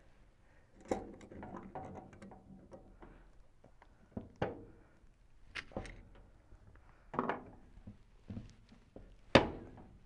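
Scattered metal clicks, scrapes and knocks as locking pliers work the rusty shaft of a cut-open rotary compressor; the rust makes the mechanism bind. A sharper knock comes near the end.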